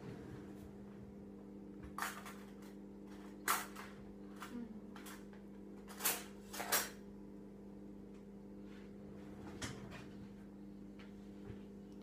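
Off-camera kitchen drawer and cupboard being worked, several sharp knocks and clatters, the loudest about three and a half and six to seven seconds in, as a fork is fetched. Under them a fridge-freezer hums steadily.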